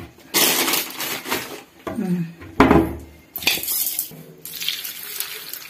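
A steel pan of cauliflower florets being handled and moved on the counter: irregular clanks and scrapes of metal, with bursts of rattling.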